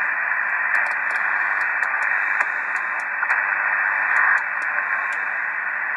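Ham International Jumbo CB transceiver's receiver hissing with steady static, with no station on the channels as its channel selector is turned. Faint irregular clicks sound over the hiss while the knob is stepped.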